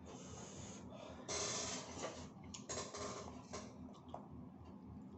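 A man breathing hard through his nose and mouth while chewing a mouthful of rice and sardines: several noisy breaths, the longest starting about a second in.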